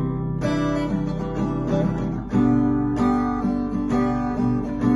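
Background music: an instrumental passage of a song with strummed acoustic guitar chords, stepping to a new, louder chord a little over two seconds in.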